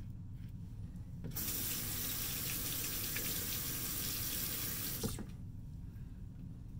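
Bathroom sink tap running for about four seconds to rinse a safety razor mid-shave. The water starts and stops abruptly, with a small knock as it is shut off.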